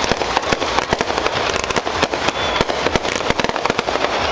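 Dense, irregular crackling and popping, many sharp pops a second, over a loud steady rushing noise.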